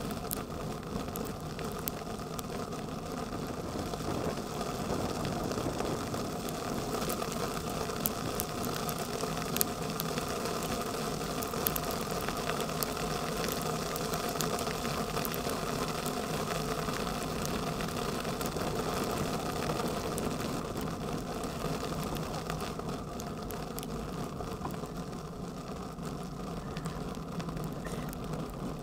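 Bicycle rolling along an asphalt road in a hail shower: a steady rumble and rattle of tyres and frame, with scattered sharp ticks of hailstones striking the bike and the handlebar-mounted camera.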